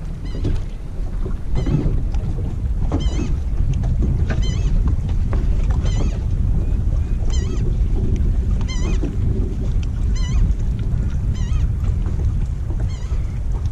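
Steady low rumble of wind on the microphone and water around the boat, with a short warbling high call, most likely a bird's, repeating about every second and a half.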